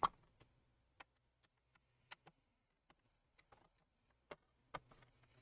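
Faint, scattered clicks of a P5 pentalobe screwdriver working the screws out of a MacBook Pro's aluminium bottom cover, with a louder click at the very start and single light ticks every second or so after it.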